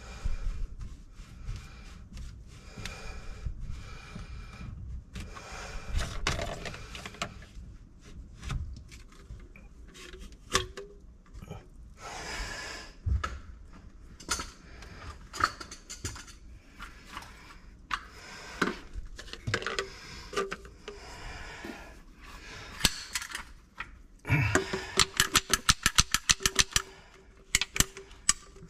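Clunks, knocks and rubbing of drain pipe and fittings being handled, then near the end a fast run of even back-and-forth sawing strokes as the drain pipe is cut to shorten it.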